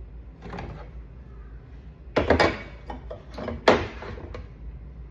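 Containers being handled and set back into a refrigerator's shelves: a few knocks and clatters, the loudest two a little past the middle.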